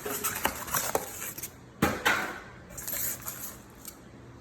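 Styrofoam packing and a cardboard box being handled and pulled apart: scattered light knocks and rustling, with one louder scraping crackle about two seconds in.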